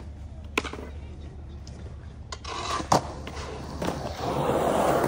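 Skateboard on concrete: a few sharp clacks of the board, the loudest about three seconds in, then the wheels rolling over the concrete for the last second.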